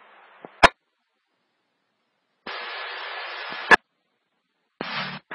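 Police scanner between transmissions: faint radio static that cuts off with a sharp squelch-tail click, then silence. About two and a half seconds in, a channel keys up with open static and no voice, ending in another sharp click, and a short burst of static follows near the end.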